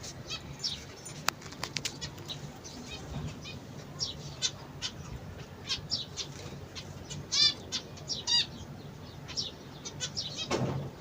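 Ornamental cage birds chirping with short high calls and some wing flapping. Two louder, ringing calls come about seven and eight seconds in.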